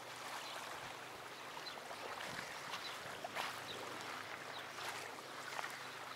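Water lapping and trickling: a steady wash with small splashes.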